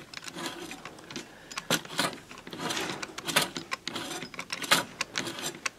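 Hand-turned Scotch yoke of a homemade air engine: the crank pin sliding in the yoke slot and the piston rod moving in and out, giving irregular clicks, rattles and rubbing of acrylic and metal parts.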